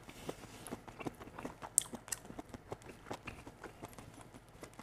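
A person chewing firm, chewy stir-fried chicken hearts close to a clip-on microphone: a quiet, irregular run of small wet clicks and ticks.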